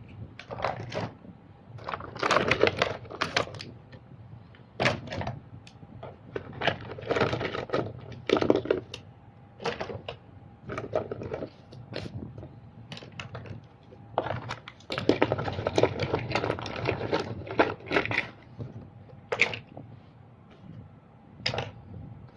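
Small hard plastic and metal toy vehicles clattering, rattling and knocking together as they are handled, in irregular bursts of clicks.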